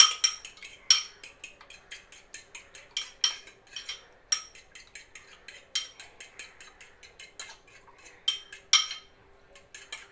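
Eggs being beaten with a fork in a ceramic bowl: quick, irregular clinks of the fork against the bowl's side, pausing briefly near the end.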